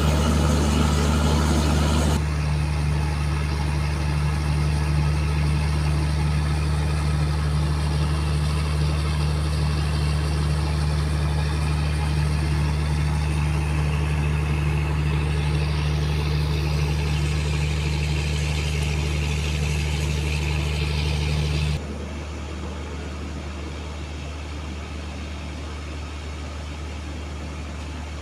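Diesel engine of a passenger train running with a steady low drone. It drops suddenly in level about 22 seconds in.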